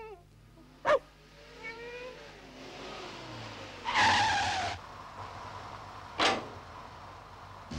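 Cartoon sound effects of a car pulling up: a low engine hum and a loud tyre screech about four seconds in as it skids to a stop, with short sharp knocks about a second in and near the end.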